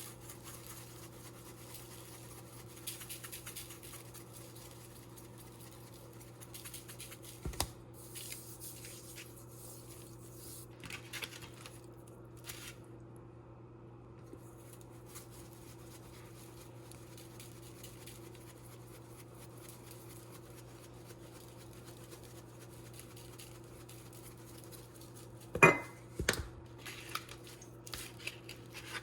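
Kitchen prep handling: faint scraping and rustling over a steady low hum, then a few sharp clatters of kitchen utensils near the end, which are the loudest sounds.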